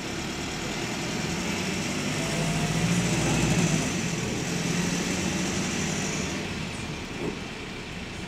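Bus engine heard from inside the GAL WS113 while it drives, with the clickety-clack of its worn engine rods in the running. The engine grows louder to a peak about three seconds in, then eases off, and a high hiss stops about six seconds in.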